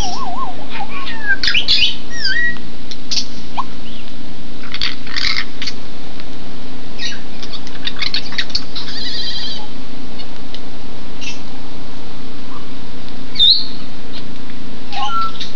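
African grey parrots calling now and then: short whistles that glide up and down, a quick trill, and a few harsh squawks, over the steady hiss of rain falling on the aviary.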